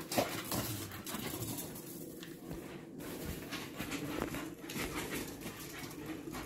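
Two Patterdale terriers chasing and play-fighting on paving stones: a run of quick scuffles and clicks with dog sounds.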